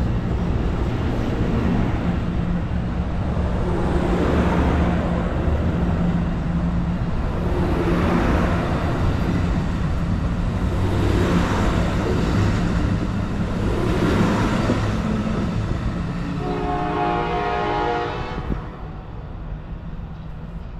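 Amtrak Pacific Surfliner bilevel passenger cars rolling past close by as the train departs, with a steady low drone and a rush of wheel noise that swells as each truck goes by, about every three seconds. Near the end the rolling noise drops and a train horn sounds in the distance.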